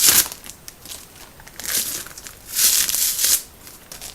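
Protective plastic film being peeled and crinkled off a hard drive's glossy case, in three short crackling spells: one right at the start and two more in the middle.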